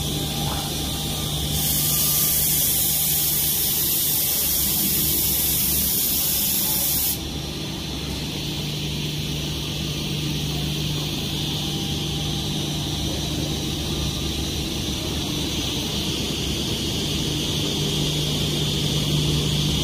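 Automatic edge banding machine running: a steady motor hum under a constant high hiss, with a louder, harsher hiss from about a second and a half in that cuts off suddenly about seven seconds in.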